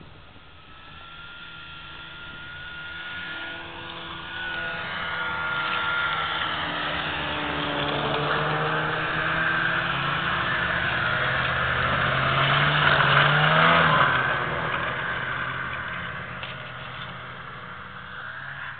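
Snowmobile engine running at speed as it comes closer, louder and louder, then passes with its pitch dropping sharply about three quarters of the way through and fades as it moves away.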